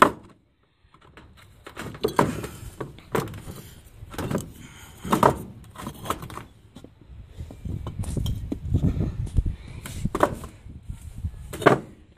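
Hollow red clay bricks being set down and shifted on a beehive's wooden top, knocking and clinking against each other and the board in a string of separate knocks a second or more apart.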